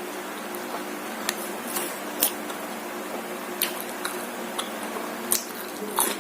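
Close-miked eating of martabak: about half a dozen sharp crunches and clicks of chewing, spaced irregularly, over a steady low hum.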